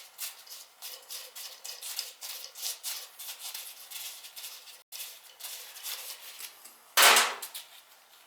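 Rapid small clicks and scraping of metal parts being worked loose in an oil-fired boiler, with one loud clank about seven seconds in.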